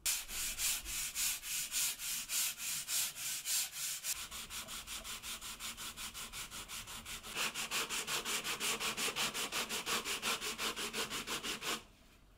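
Hand sanding a softwood board with sandpaper on a cork sanding block: a rasp in quick back-and-forth strokes, about five a second, first across the face and then on the hard end grain. The rasp grows fuller and louder about seven seconds in, and stops abruptly just before the end.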